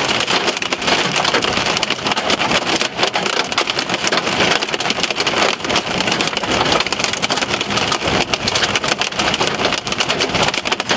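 Hail and rain pelting the car's roof and windshield, heard from inside the car: a dense, steady patter of countless small hits.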